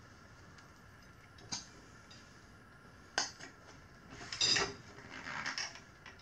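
Metal tools clinking and scraping against a motorcycle wheel rim while a tube-type tire is worked onto it: single sharp clinks a second and a half and three seconds in, then a cluster of clinks and scraping near the end.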